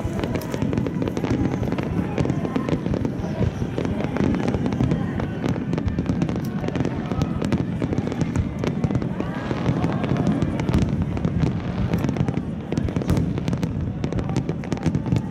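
Aerial fireworks going off in a rapid, continuous barrage of bangs and crackles, with crowd voices underneath.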